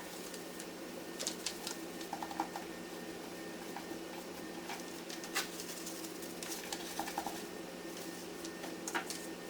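Scattered light clicks and taps, some in quick little clusters, from parts being handled in a Dell PowerEdge R710 server during a CPU and RAM swap, sped up threefold, over a steady low hum.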